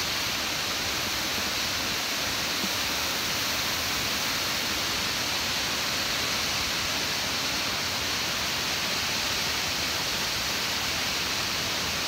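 Waterfall carrying a lot of water, a steady rush of water pouring down a rock face into a pool.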